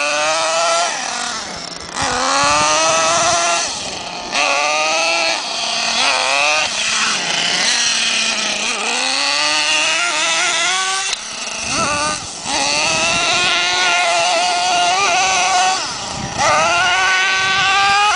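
Small two-stroke nitro engine of a 1:8-scale RC truck, a Thunder Tiger Sledge Hammer S50, revving up and easing off again and again, its high buzzing pitch rising with each burst of throttle.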